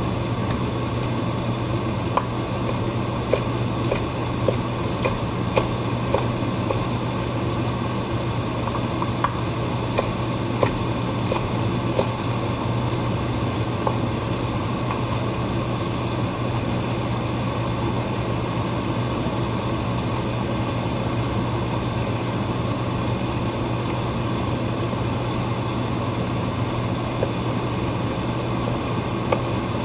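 Tosa nakiri knife chopping green bell pepper on a wooden cutting board: scattered sharp knocks of the blade striking the board, most of them in the first half and a couple near the end. A steady low hum runs underneath.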